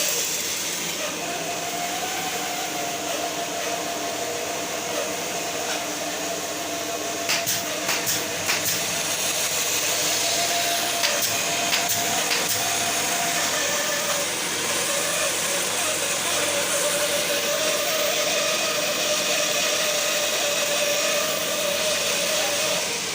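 A woodworking machine's electric motor running steadily, with a few sharp knocks about a third of the way in and again around halfway.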